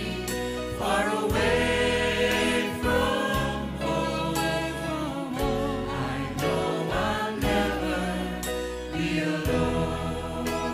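Gospel choir singing with a band backing of sustained bass notes and a regular drum beat.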